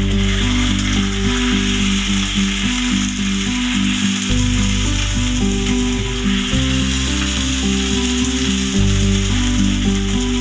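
Food sizzling as it fries in oil in a wok and is stirred, a steady hiss throughout. Background music with held low notes plays under it.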